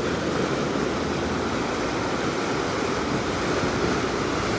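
Steady rush of churned white water alongside a moving sportfishing boat, with a low steady rumble underneath.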